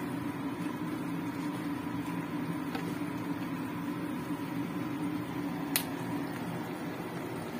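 Steady appliance motor hum, with a wooden spatula stirring chicken curry in a stone-coated wok; one sharp click about six seconds in.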